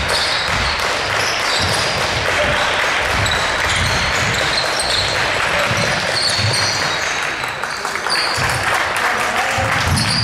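Basketball game sounds on a hardwood sports-hall court: the ball bouncing, many short high sneaker squeaks, and players' shouts and voices, all echoing in the large hall.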